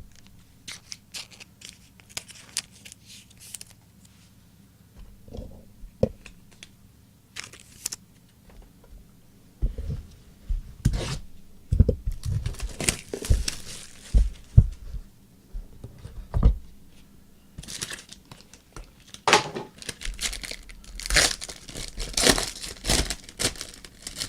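Trading card pack wrappers being torn open and crinkled while the cards are handled. Sparse handling clicks for about the first ten seconds, then louder, more frequent tearing and crinkling.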